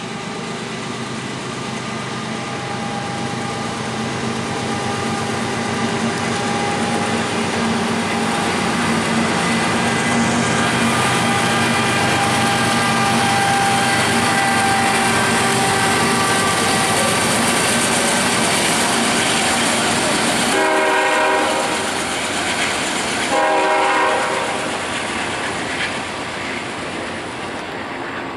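CSX GE diesel locomotives pulling a double-stack intermodal train across a steel girder bridge, their engine drone growing louder as they pass. A locomotive air horn sounds two blasts of about a second each, roughly two-thirds of the way in. Near the end the drone fades into the rumble of the rolling stack cars.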